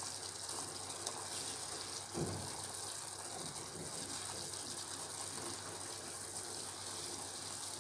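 Sugar syrup boiling in a steel pot, a steady bubbling hiss, with one soft low thump about two seconds in as a chenna ball goes into the syrup.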